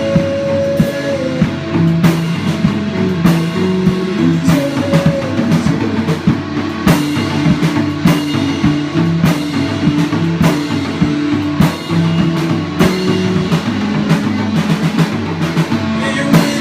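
Instrumental rock music: guitar over a drum kit keeping a steady beat, with a drum hit about every second.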